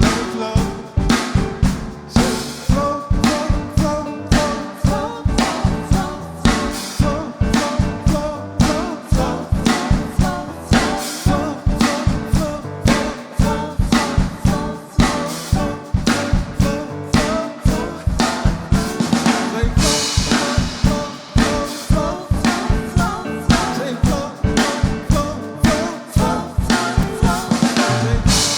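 Live worship band music: a drum kit drives a fast, steady beat with kick and snare under sustained chords. A cymbal swell rises about twenty seconds in.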